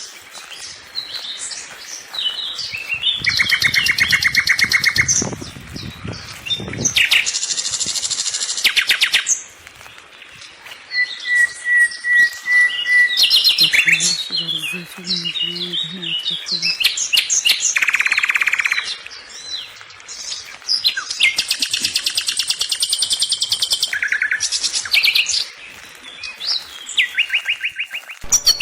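Several small songbirds singing, with fast trills of rapidly repeated notes and short chirps that come and go throughout.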